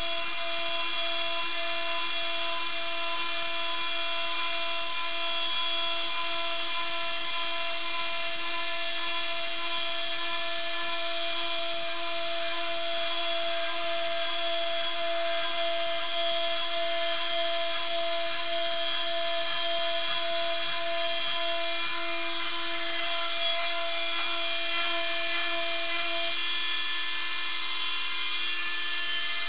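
CNC router milling a small pulley: a steady machine whine made of several held tones. One of the tones drops out near the end.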